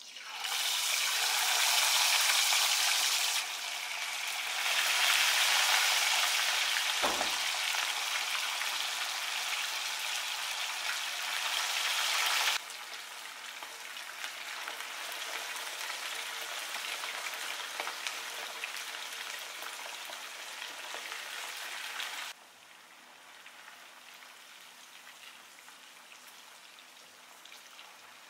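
Rohu fish steaks deep-frying in hot oil: a loud, steady sizzle that starts sharply as the fish goes in. The sizzle drops abruptly in level several times, and there is a single low knock about a quarter of the way in.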